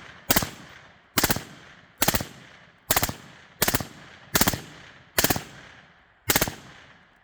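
Suppressed rifle with a super safety trigger fired in eight quick bursts of a few shots each, under a second apart, each burst trailing off in an echo.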